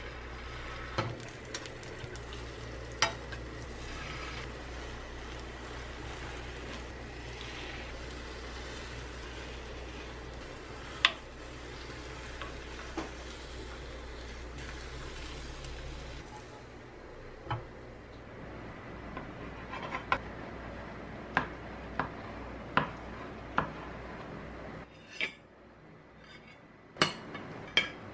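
Beaten egg sizzling steadily in an oiled square rolled-omelette pan, with a wooden spoon and a metal spatula clicking and scraping against the pan as the egg is rolled up. The sizzle drops away about sixteen seconds in, and a run of sharp clinks of utensils follows, ending with metal on a ceramic plate.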